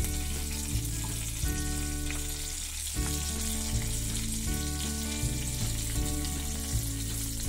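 Freshly added chopped green chilli, curry leaves and cumin seeds sizzling in hot oil in a non-stick pan. Background music with a steady bass line plays under it.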